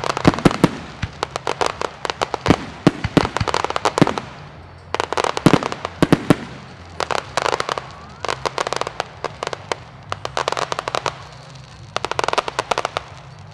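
Aerial firework shells bursting, with clusters of rapid crackling from the stars every second or two, some sharp bangs among them.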